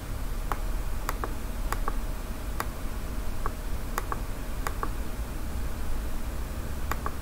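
Computer keyboard and mouse clicking: about a dozen short clicks at irregular intervals, several of them in quick pairs, over a faint low hum.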